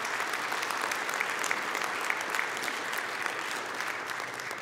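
A congregation applauding, a dense patter of many hands clapping that dies away near the end.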